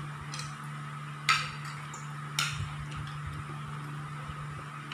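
Cutlery and plates clinking three times at the dining table, the loudest clink about a second in, over a steady low hum.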